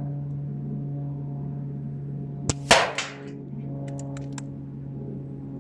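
Air Arms S510 SL carbine .22 pre-charged air rifle firing one shot about two and a half seconds in: a short click, then a sharp crack that rings on briefly. A few faint clicks follow about a second later.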